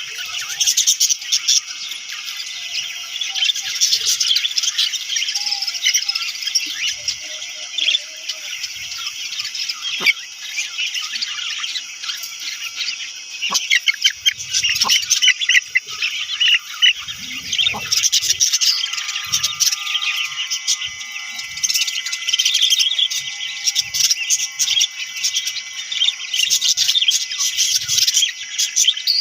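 Budgerigars chirping and chattering, many birds calling at once in a dense, continuous stream of short chirps.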